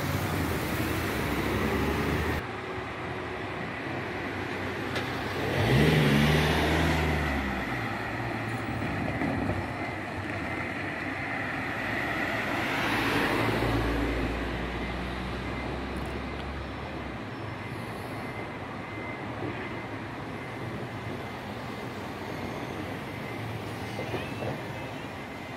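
Cars driving past at close range, with two louder pass-bys about six and thirteen seconds in; the first has an engine note rising as the car speeds up.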